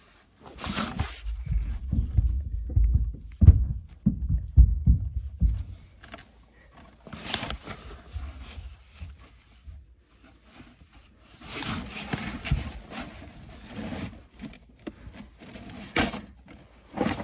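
Close rustling and muffled thumps of cloth and hands rubbing against a handheld camera's microphone. Heavy low bumps come during the first several seconds, then lighter, scratchy rustles come and go.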